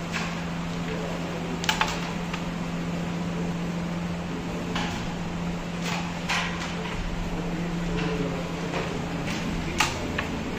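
Carrom striker flicked across a carrom board, clacking against the wooden carrom men, with several short sharp clicks: a double click about two seconds in, more around the middle, and the sharpest near the end. A steady low hum runs underneath.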